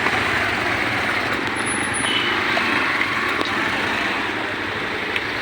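A train running, a steady rushing noise with a low hum underneath.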